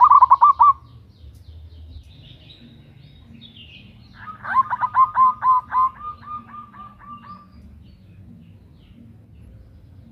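Zebra dove (perkutut) cooing: a short, quick run of notes right at the start, then about four seconds in a longer series of rapid, loud staccato coos that trails off into softer, evenly spaced notes.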